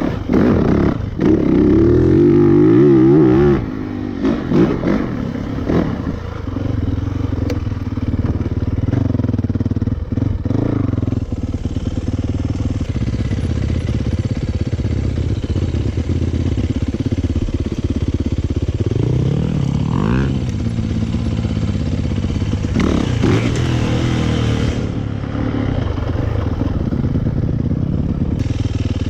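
2019 Yamaha YZ450FX dirt bike's single-cylinder four-stroke engine revving hard over the first few seconds, then running steadily under throttle, with the pitch climbing again about two-thirds of the way through.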